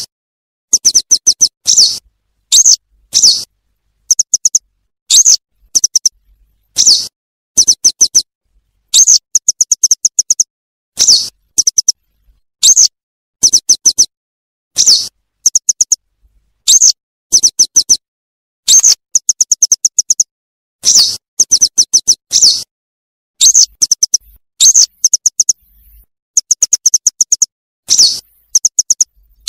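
Recorded yellow wagtail calls looped as a hunting lure: high, rapid chirps in short runs, mixed with single slurred call notes, repeating about once a second with clean silent gaps between groups.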